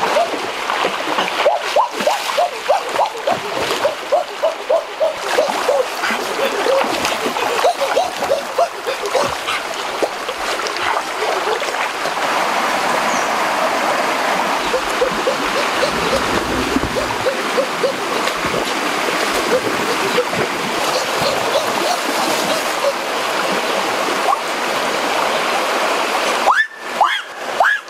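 River water splashing and running as a person swims through it. Runs of short, repeated pitched calls sound over the water throughout.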